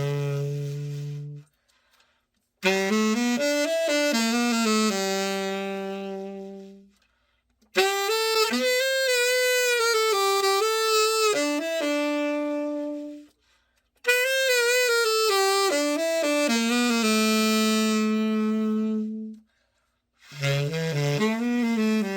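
Selmer Super Action 80 Series II tenor saxophone, freshly overhauled, played solo: a slow melody of held notes in four phrases of several seconds each, with brief silent breaths between them.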